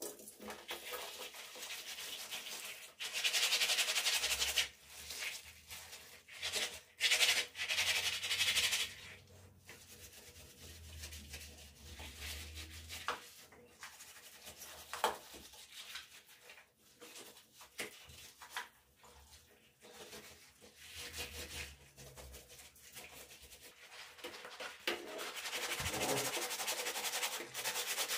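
Scrubbing of bathroom surfaces in bursts of brisk rubbing, loudest for a couple of seconds at a time, with knocks and clicks between the strokes.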